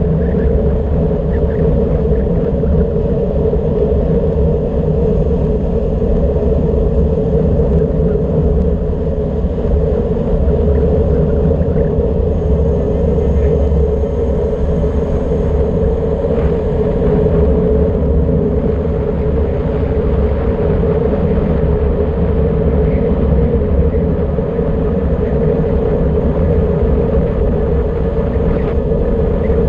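Steady, loud wind rushing over an action camera's microphone on a fast bicycle descent at about 55 km/h, with a constant hum running through it.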